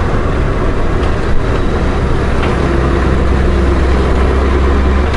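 Honda Gold Wing GL1500's flat-six engine running at a steady cruise under a constant rush of wind noise.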